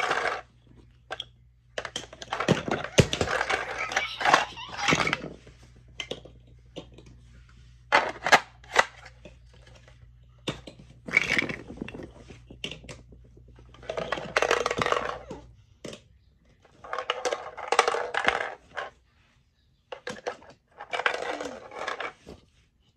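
Chunky plastic shapes rattling and clattering inside a hollow plastic shape sorter as it is shaken and tipped. The rattling comes in bursts of a second or two, with short pauses between.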